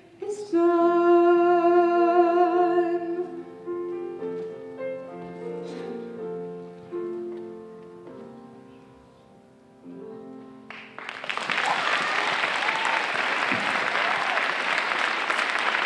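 A female singer holds a final note with vibrato over grand piano. The piano plays a few soft closing chords that fade away, and then audience applause starts suddenly about eleven seconds in.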